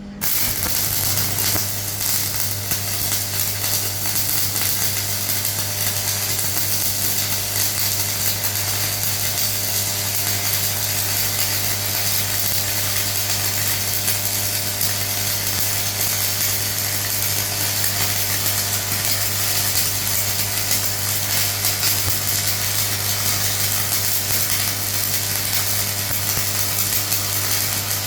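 Electric arc welding: the arc crackles and sizzles steadily without a break, over the low hum of the welding machine. It strikes up suddenly at the start.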